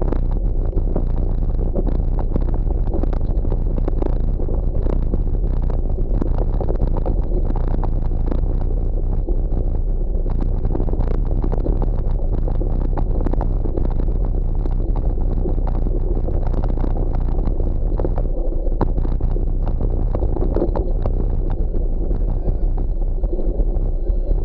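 Gravel bike rolling fast over rough grassy double-track, heard from a camera riding on the bike: a steady low rumble of tyres and wind with constant rattling and knocks from the bumps.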